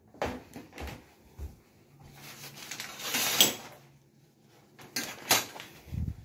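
Scattered household knocks and clicks, like a door or cupboard being handled. A rush of noise swells about two seconds in and ends in a sharp hit, and another sharp knock comes about five seconds in.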